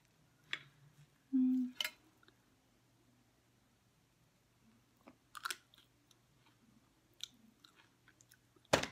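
A person chewing a mouthful of chatpate, a spicy puffed-rice snack, with scattered soft crunches and mouth clicks, and a short hum of the voice about one and a half seconds in. A single sharp click near the end is the loudest sound.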